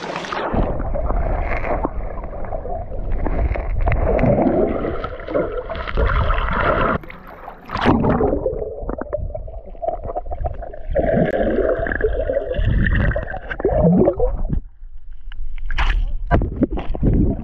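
Stream water heard through an action camera held underwater: muffled bubbling and rushing with low rumbles, the high sounds cut off. A few sharp splashes near the end.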